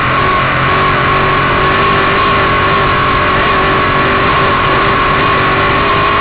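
Dirt-track Sportsman race car's V8 engine running hard at racing speed, heard from inside the open cockpit: loud and steady in pitch, with no let-up.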